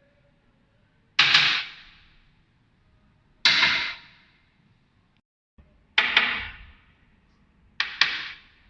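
A sharp knock or clap, repeated four times a couple of seconds apart, each ringing out for about half a second; the last comes as a quick double.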